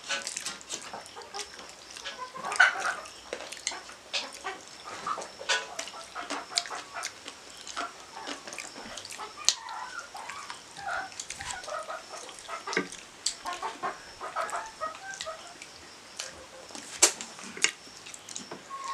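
Hand-eating of rice and chicken from metal plates: wet chewing and lip-smacking, with sharp clicks of fingers and bones against the plates, the loudest about two and a half seconds in and near the end.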